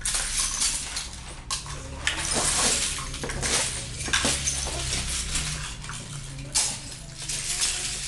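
Loose plastic Lego bricks clattering and rattling without a break as handfuls are scooped up from a pile on the floor and put away.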